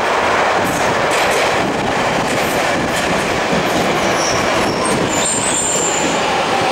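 CNR Changchun DKZ16 subway train running into an underground station platform: a steady loud rush of wheels on rail, with clicks over the rail joints and brief high squeals a little past the middle.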